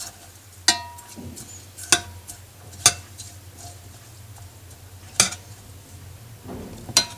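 A spoon stirring lemon slices and herbs in water in a saucepan, clinking against the pot five times at uneven intervals, some clinks ringing briefly, over a low steady hum.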